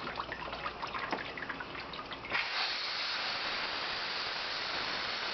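Water dripping and splashing, then a steady stream of running water begins about two seconds in.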